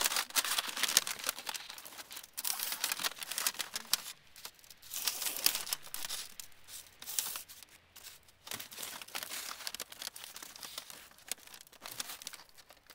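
Thin stainless-steel stove chimney pipe being worked and slid together by hand: scraping, crinkling metal noise in irregular bursts, with short pauses between them.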